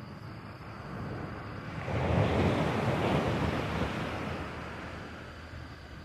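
Sea waves washing in: one surge of water noise swells about two seconds in and slowly fades away.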